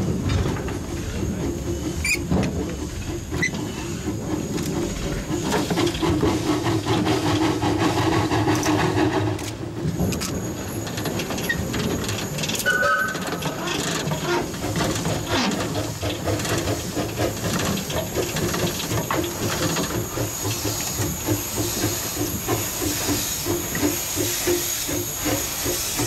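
A 760 mm narrow-gauge steam locomotive running slowly up close, with rhythmic exhaust chuffs and hissing steam. Its whistle sounds for about three seconds, starting some six seconds in. From about ten seconds in, a sharp, high steam hiss sets in as the engine draws alongside.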